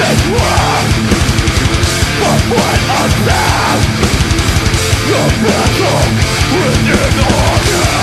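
Metalcore band playing live at full volume: heavily distorted electric guitars over rapid, steady double-kick drumming.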